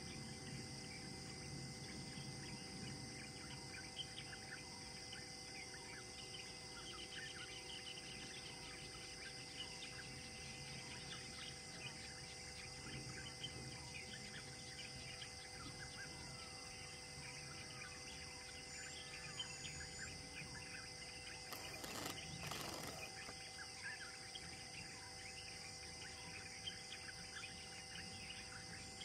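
Faint outdoor ambience: many small bird chirps and calls over a steady high insect drone, with one brief burst of rustling noise about two-thirds of the way through.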